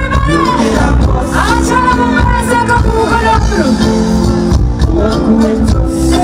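Live band music with a singer's voice over it, the singer gliding up into one long held note with vibrato about a second in, over sustained chords and a steady bass.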